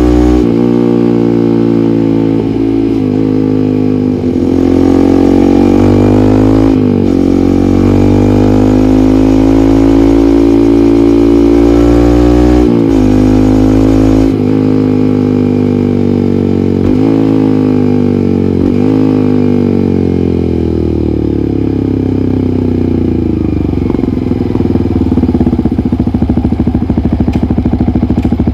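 Yamaha MT15's 155 cc single-cylinder engine through an SC Project aftermarket muffler, being ridden: the revs climb and break off several times as it changes gear, then fall away steadily as the bike slows on the engine, settling into a low, lumpy throb near the end.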